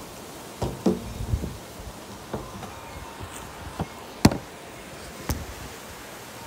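Handling noise from a handheld camera being gripped and swung around: a scattering of short knocks and taps, several in the first second and a half, the sharpest about four seconds in.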